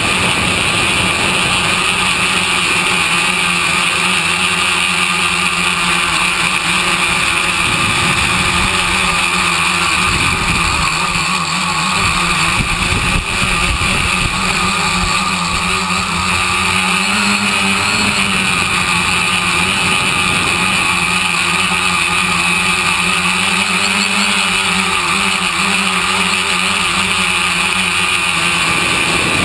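The electric motors and propellers of a radio-controlled tricopter whining steadily in flight. The pitch rises and falls as the throttle changes.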